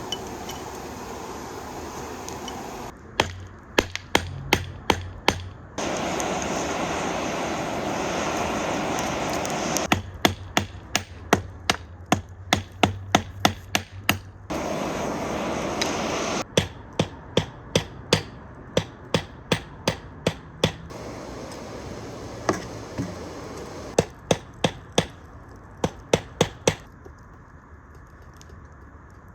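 Hand hammer striking hot metal on an anvil in quick runs of blows, several a second. Between the runs is a steady rush of air from a hair dryer blowing into a small wood-fired forge, louder in two stretches.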